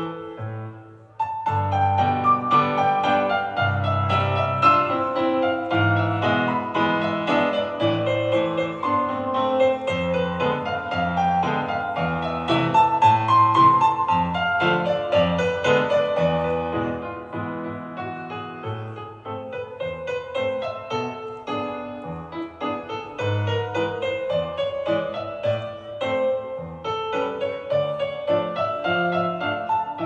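Piano music for a ballet solo, a flowing melody over low bass notes, with a short break about a second in before the playing resumes.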